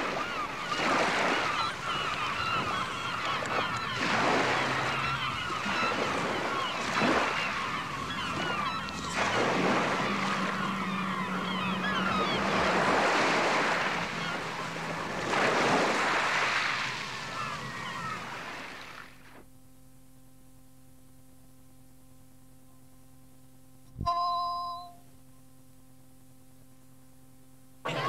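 A prerecorded sleigh-ride sound-effects track played from cassette: a dense, busy mix that stops about 19 seconds in. Faint steady tape hum follows. About 24 seconds in comes a click and a short cueing chime of a few held tones, marking the start of the next track.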